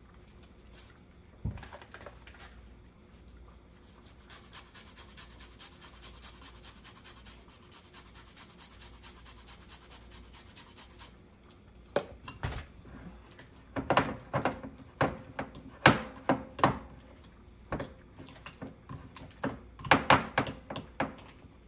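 A utensil knocking and scraping against a glass bowl while a butter, thyme and lemon-zest mixture is stirred, in irregular sharp clinks through the second half. Before that there is only a faint, fine, rapid scraping.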